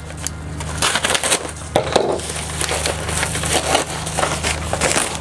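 Yellow padded bubble mailer being slit open and rummaged through: a run of irregular crinkling, scraping and tearing noises as the envelope is handled.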